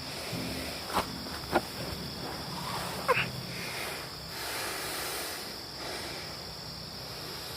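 Night insects droning steadily in a high, even band, with two sharp clicks about a second in and a short falling squeak about three seconds in.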